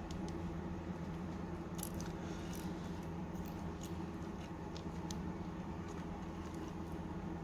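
Faint, scattered clicks and light taps from small tools and phone parts being handled during an iPhone 5c screen replacement, over a steady low hum.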